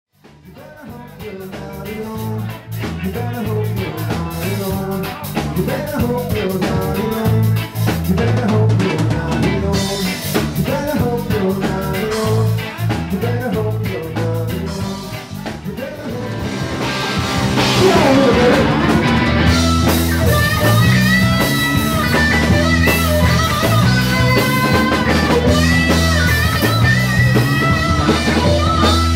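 A rock band playing live, with bass, drums and guitar, fading in at the start. About two-thirds of the way through it gets louder and a sustained lead line comes in over it.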